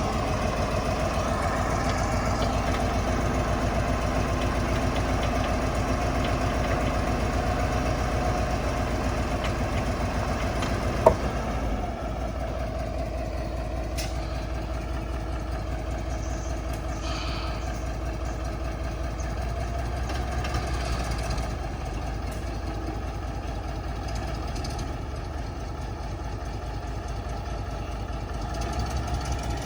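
Diesel engine of heavy earthmoving machinery running steadily on road-cutting work, its pitch drifting slightly up and down with the load. There is one sharp knock about eleven seconds in.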